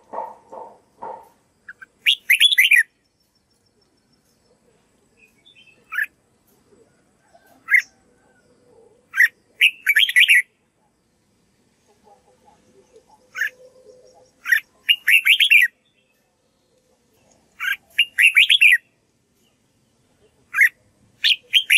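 Caged red-whiskered bulbul singing short, bright, rapid whistled phrases every couple of seconds, with quiet gaps between. In the first second, a run of lower pulsed notes, about five a second, from another source.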